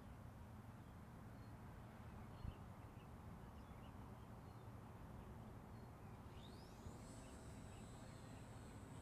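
Near silence: faint open-air ambience with a low rumble and scattered faint bird chirps, one small click about two and a half seconds in. About six seconds in a faint high whine rises and then holds steady.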